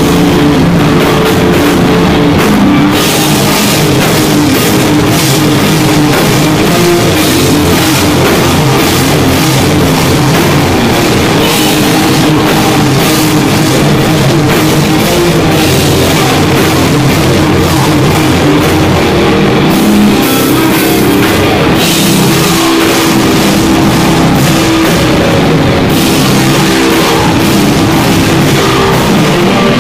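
Live rock band playing loudly: electric guitars over a full drum kit with crashing cymbals.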